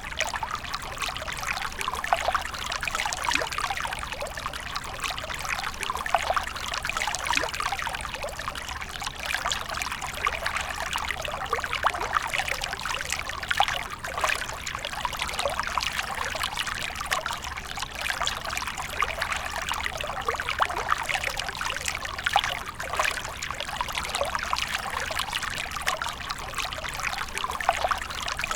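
Running water of a small stream, a steady babble of many small trickles and splashes.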